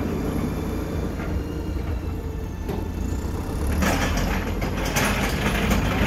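JCB 3CX backhoe loader's diesel engine running steadily; from about four seconds in, its front loader bucket scrapes into a pile of rubble and stones, with a run of knocks and grinding as the material is pushed.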